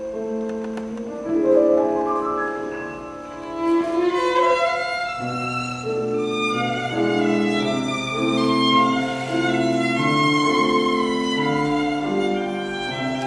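Live violin playing a waltz melody with piano accompaniment, in classical concert style.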